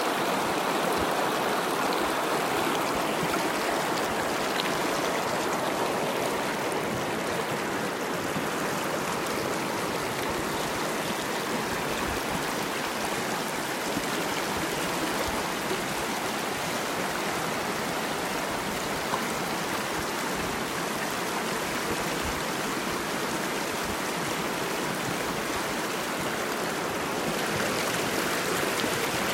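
Mountain river running over rocks, a steady rushing and burbling.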